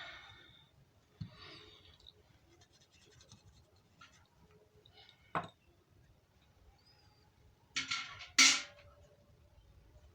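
Handling noise of a small phone being held and moved: soft rubbing and scratching with a few sharp clicks and knocks, the loudest a pair about eight seconds in. No start-up tune or ring comes from the Jio phone, whose speaker is faulty.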